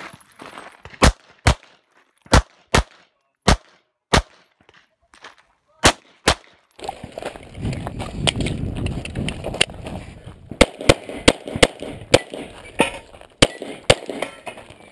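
9mm Glock pistol firing a string of shots: about eight in the first seven seconds, mostly in quick pairs, then a faster run of about a dozen near the end. Over the second half a steady rushing noise sits on the microphone.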